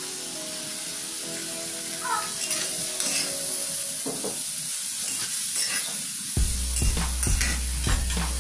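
Squid and green onions sizzling in a hot stainless-steel wok while a metal spatula stirs and tosses them. The spatula scrapes and clatters against the pan again and again, more often from about four seconds in.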